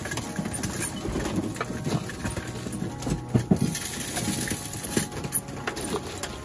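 Racing pigeons crowding to feed: wings flapping and many quick, irregular taps of beaks pecking grain from metal feed troughs on a wooden floor, the loudest taps about three and a half seconds in.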